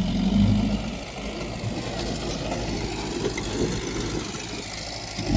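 Diesel engine of earthmoving machinery running steadily, louder for the first half second, with a brief loud burst near the end.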